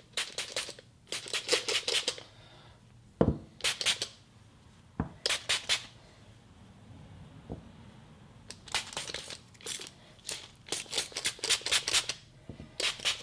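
Wax being worked by hand over an Apple Watch, its band and case: runs of quick, short scratchy strokes, several a second, with pauses between runs and a couple of soft knocks.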